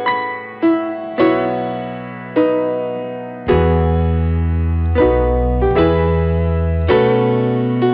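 Background music: a keyboard plays a run of struck, decaying notes and chords, with low bass notes joining about three and a half seconds in.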